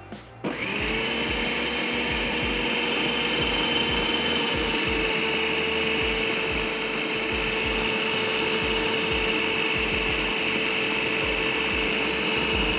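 Electric food chopper motor starting about half a second in and running with a steady whine, kneading dough as water is added.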